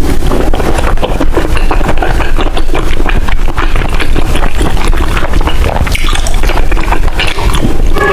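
Close-miked chewing of oden: a dense, continuous run of clicks and smacks.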